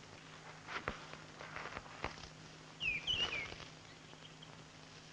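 Footsteps through dry woodland undergrowth, with a few sharp twig cracks. About three seconds in, a bird gives a short call of a few quick chirps.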